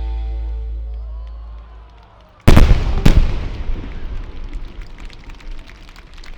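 Music fading out, then two loud aerial firework shell bursts about half a second apart, followed by a long scatter of sharp crackling that slowly dies away.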